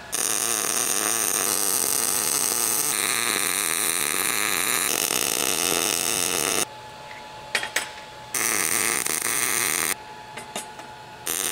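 MIG welding arc in short-circuit transfer on steel: a steady crackling hiss for about seven seconds, then after a short pause with a couple of clicks a second, shorter run, and a third starting near the end.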